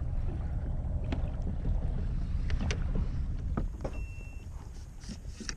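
Wind on the microphone and water splashing at the side of a fishing kayak: a steady low rumble with scattered short, sharp clicks and splashes, and a short beep about four seconds in.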